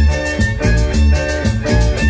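Live Latin dance music from a band with violins, electric guitar, drums and a scraper, played over a steady, bouncing bass line.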